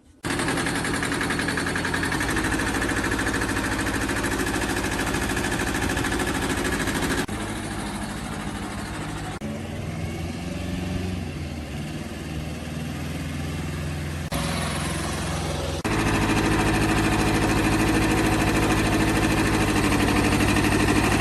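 Iseki TX1210 tractor engine running steadily, starting suddenly at the beginning and changing abruptly in level and tone several times, about 7, 14 and 16 seconds in.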